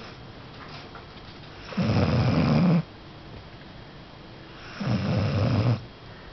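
A sleeping pet snoring: two snores about three seconds apart, each lasting about a second.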